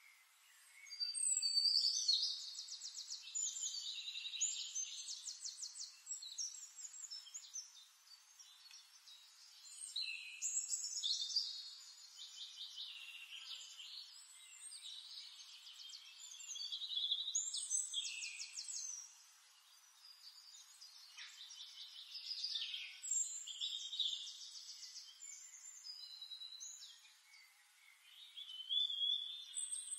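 A songbird singing long phrases of rapid trills, chirps and quick pitch glides, several seconds each with short pauses between.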